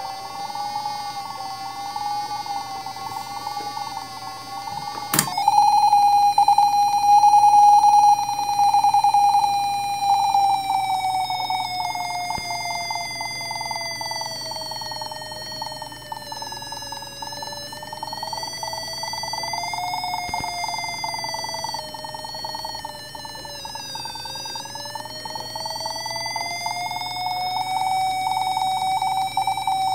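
Buzzy electronic tone from the clybot C6 robot's small speaker, driven by Arduino's tone command, its pitch following the light on the robot's two light-dependent resistors: brighter light gives a lower pitch. The pitch slides slowly down and back up several times, and a click about five seconds in is followed by a louder tone.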